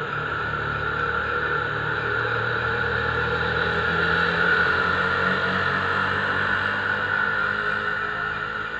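A motor engine running steadily, a little louder around the middle and easing off near the end.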